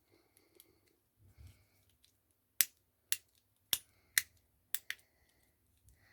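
Plastic fidget pad being clicked: six sharp clicks, about half a second apart, in the second half.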